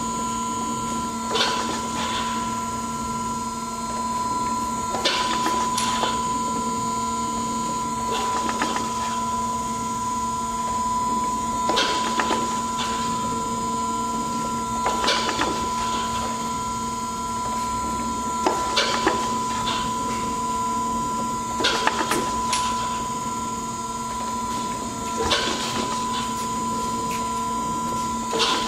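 Mark 1848 hydraulic surface grinder running, a steady hum from its hydraulic drive while the table traverses back and forth. A sharp clunk comes about every three and a half seconds as the table reverses at each end of its stroke.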